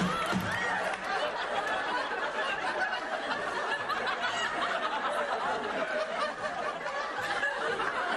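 Studio audience laughing, a steady wash of many people laughing together.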